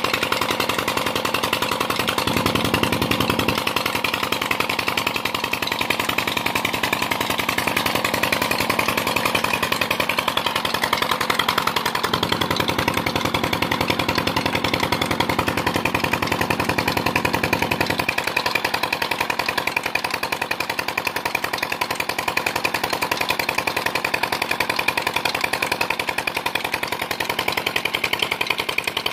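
Tubewell pump engine running with a steady, rapid chugging beat, with water gushing from the outlet pipe into the irrigation channel.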